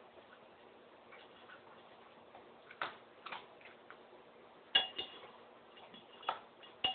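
A handful of short, sharp clicks and taps at uneven intervals over faint room tone with a low hum, the loudest about three-quarters of the way through.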